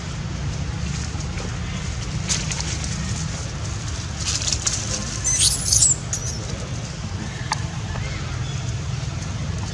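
Baby long-tailed macaque squealing and screaming in short, wavering, high-pitched cries about halfway through, over a steady low rumble.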